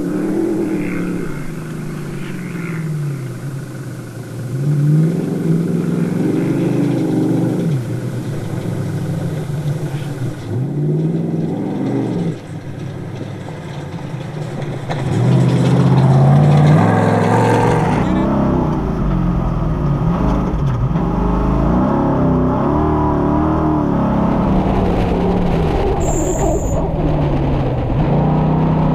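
V8 engine of the Beast347 rally buggy heard from onboard, revving up and dropping back again and again as it shifts through the gears at speed. About eighteen seconds in the sound changes abruptly and gains a heavier low rumble.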